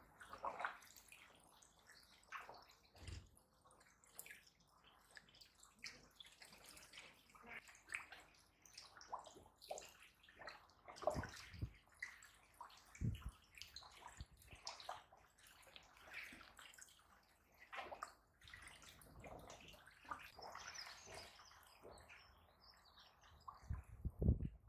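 Koi slurping and splashing at the surface of a pond: quiet, irregular small splashes, gurgles and drips, with a louder cluster of splashes near the end.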